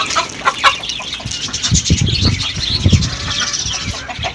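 Country chickens clucking and chirping, many short calls in quick succession, with a few low thuds about two and three seconds in.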